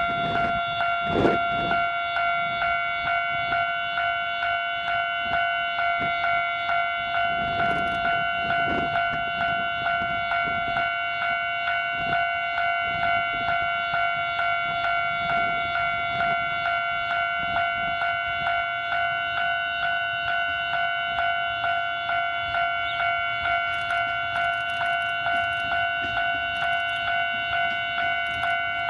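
Japanese railway level-crossing warning bell ringing continuously, a fast repeating electronic ding on one steady pitch, as an electric train approaches. A few low rumbles come and go underneath, the strongest about a second in.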